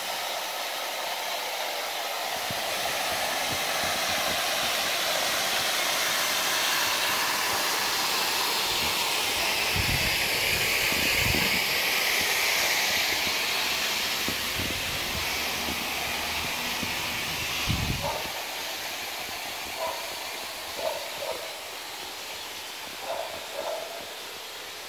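Water spraying from a leaking underground water pipe, a loud steady hiss that eases off in the last few seconds. A few low thumps sound around ten and eighteen seconds in.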